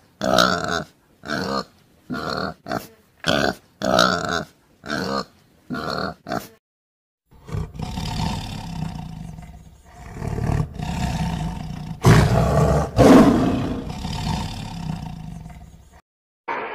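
Piglets making a run of short calls, about ten in the first six seconds, then a tiger growling and roaring, loudest about three-quarters of the way through.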